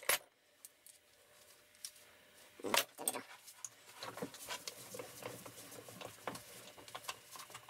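Light clicks and knocks of a metal brake pipe and tools being handled at a bench vise, with one louder knock about three seconds in.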